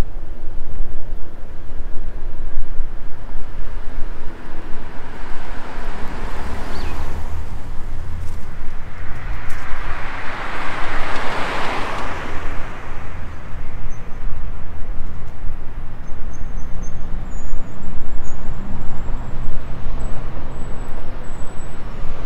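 Street traffic: one vehicle passes close by, its noise swelling to a peak about halfway through and then fading, over a steady low rumble.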